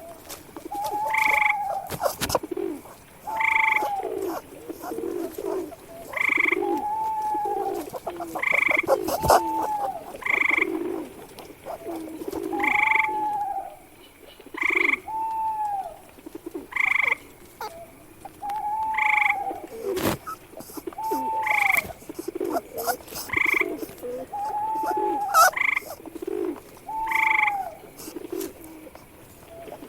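Animal calls, frog-like croaks, repeating about every two seconds: each is a short arched note over lower croaking, with a few sharp clicks in between.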